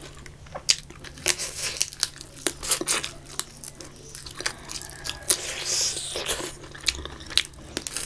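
Close-miked eating of fried fish by hand: tearing, biting and crunchy chewing, with many short sharp crackles and wet mouth smacks as the fish's bones are picked out.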